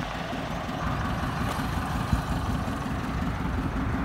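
Hindustan Contessa's four-cylinder petrol engine idling steadily, a regular low pulsing from the exhaust.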